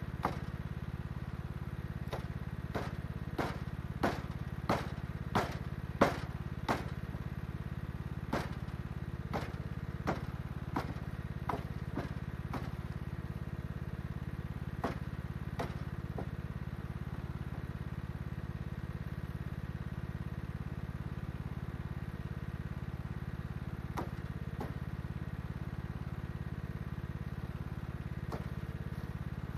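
Sharp hatchet chops into branches, coming quickly in the first several seconds, then more spaced, with a long pause before a few more near the end. Under them the Kohler Courage engine of a Troy-Bilt Bronco lawn tractor idles steadily.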